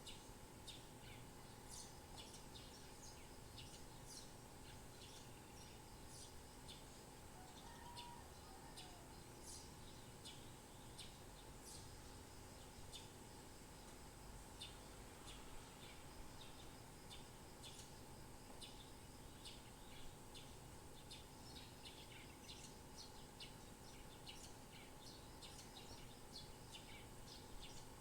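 Birds chirping: many short, high chirps from several birds, overlapping throughout, faint over a steady background hiss.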